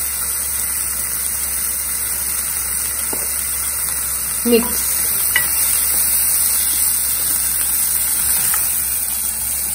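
Diced capsicum, ginger and green chillies frying in butter and olive oil in a stainless steel pot, a steady sizzle, with a few light taps and scrapes of a plastic spoon stirring the pot.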